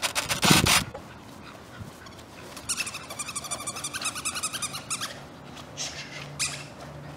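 Beagle puppy barking and yelping. There are a few loud barks at the start, then a rapid run of high-pitched yelps from about two and a half to five seconds in.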